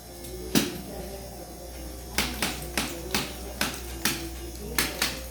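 A series of sharp clicks during a chiropractic adjustment: a single one about half a second in, then a run of eight in quick, uneven succession, over faint background music.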